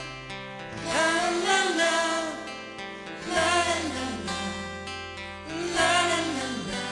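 Burmese pop song: a voice sings wordless "la la la" phrases over a sustained instrumental backing. There are three phrases, each swelling and falling away.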